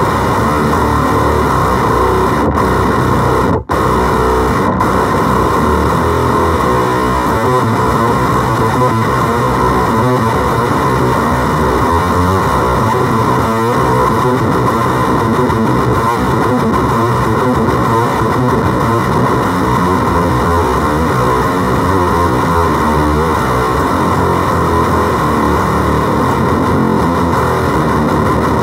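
Electric guitar signal through fuzz pedals (FOWL Sounds Octagram Fuzz and Danelectro French Toast octave fuzz) played out of a small amplifier: a loud, continuous wall of harsh fuzz distortion and noise. It cuts out briefly about two and a half and three and a half seconds in.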